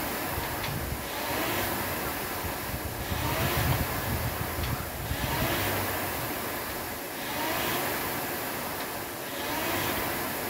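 Air rowing machine's fan flywheel whooshing as it is pulled hard, the rush swelling with each stroke and easing on the recovery, about every two seconds.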